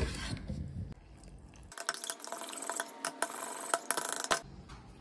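A serrated knife cuts through a lime and knocks on a wooden cutting board at the start. Then, from about two seconds in, a metal spoon stirs a creamy sauce in a ceramic bowl, clinking rapidly and repeatedly against the bowl.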